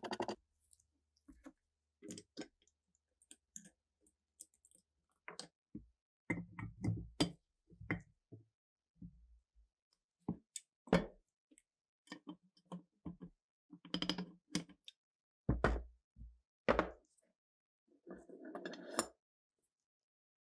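Steel machine-gun parts clicking and knocking as they are handled and set down on a wooden workbench, at irregular intervals, with a few heavier thumps. Near the end a short scrubbing rasp.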